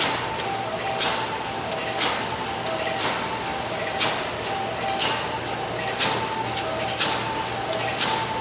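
Jujube processing machine running, a sharp mechanical stroke about once a second over a steady low hum, with brief high chirping tones in between.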